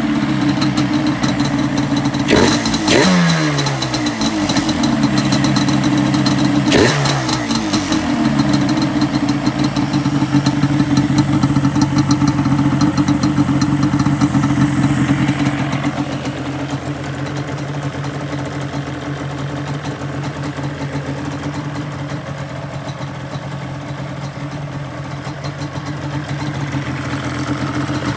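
Yamaha Banshee's 350 cc twin-cylinder two-stroke engine running after its first start following a rebuild. It is blipped twice near the start, revving up and falling back each time, then settles into a steady idle, running cleanly with no issue.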